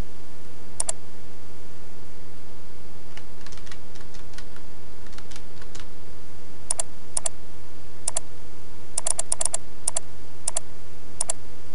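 Light keystrokes on a computer keyboard, then sharp computer mouse clicks: a few single clicks and a quick run of several clicks in a row. A steady low electrical hum runs underneath.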